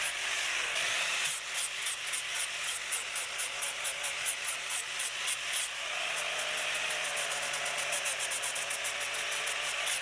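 Handheld power tool with a sanding disc running against carved pine wood, with a fast, regular scratching as the disc passes over the spiral grooves.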